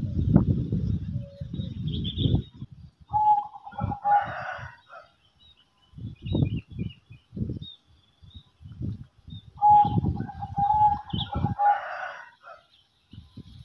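A rooster crowing twice, about six seconds apart, each crow a long held note that ends in a rougher burst. Faint high chirps of small birds and an uneven low rumble fill the gaps.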